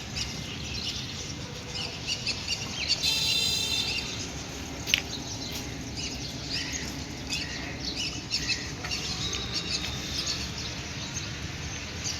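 Small birds chirping repeatedly over a steady outdoor background, with a brief shrill tone about three seconds in and a sharp click about two seconds later.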